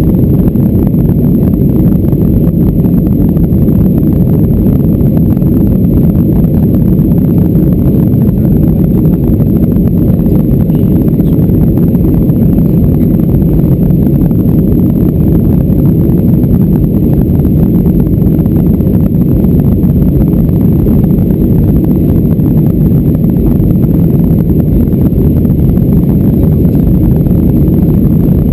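Steady, loud rumble of a Boeing 737-400 in climb heard from inside the passenger cabin: the noise of its CFM56-3 turbofan engines and the airflow, low and even, with a thin steady high-pitched tone above it.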